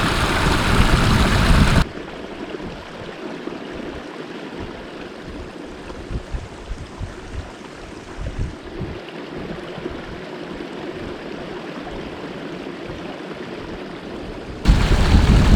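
Small brook running with a steady rushing gurgle. It is bracketed by loud wind buffeting the microphone, which cuts off about two seconds in and returns abruptly just before the end.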